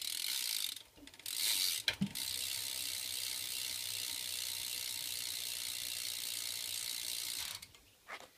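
BMX wheel hub freewheeling, its ratchet pawls buzzing in a fast run of clicks as the wheel spins. It comes in two short bursts, then runs steadily for about five seconds and stops near the end.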